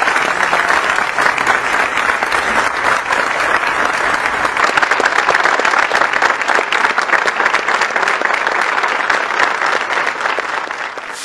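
A large crowd clapping: dense, steady applause that tapers off in the last second or so.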